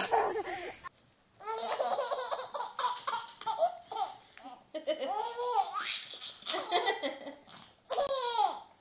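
A baby laughing hard in repeated bursts of belly laughter, starting about a second in.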